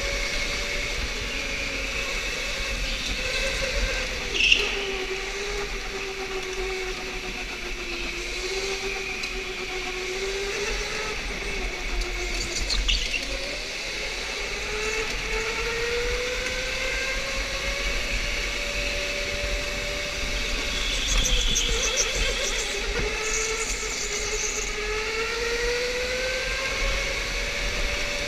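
Electric go-kart motor whining, its pitch slowly rising and falling as the kart speeds up and slows through the corners, over a steady rush of wind and tyre noise. A brief sharp sound stands out about four seconds in.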